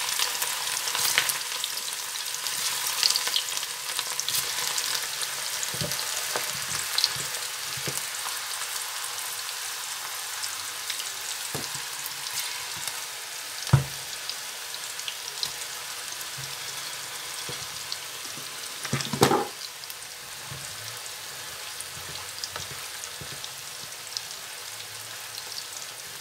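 Mutton kofta meatballs deep-frying in hot oil in a frying pan, a steady crackling sizzle that eases a little toward the end. Two knocks cut through it, one about halfway through and another some five seconds later.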